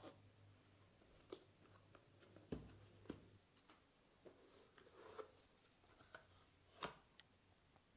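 Faint handling of a cardboard shipping box: scattered taps and knocks as it is turned and set down, a dull thump about two and a half seconds in, a rustle as the lid is lifted and the packing is exposed, and a sharper knock near seven seconds.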